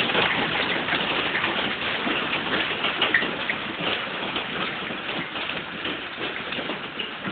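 Hail pelting down: a dense patter of countless small impacts that slowly grows fainter.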